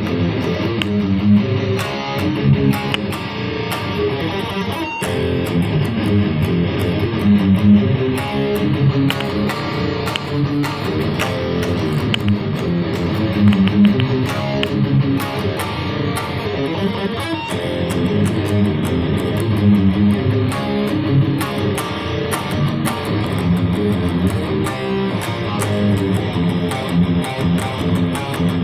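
Electric guitar playing riffs through a Zoom G1Xon multi-effects processor on a riff-tone patch, in a steady rhythmic pattern.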